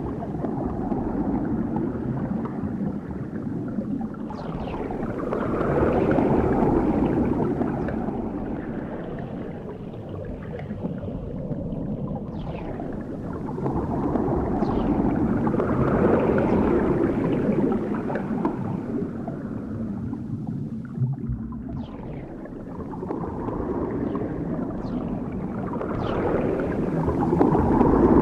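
Underwater bubbles: a dense stream of bubbling and gurgling that swells and ebbs in slow waves about every ten seconds, with occasional brief high pings.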